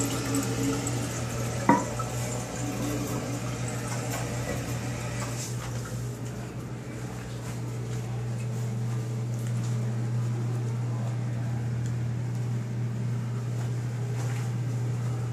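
Toto toilet tank refilling after a flush: water hisses in through the fill valve and tapers off after about five or six seconds. A sharp knock comes about two seconds in, and a steady low hum runs underneath.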